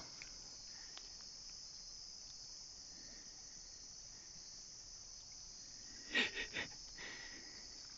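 Steady high-pitched chorus of crickets and other night insects, with a brief louder sound about six seconds in.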